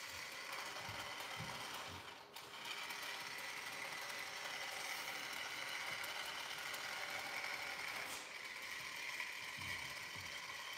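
Battery-powered toy drill whirring steadily, cutting out briefly twice, about two seconds in and again near eight seconds.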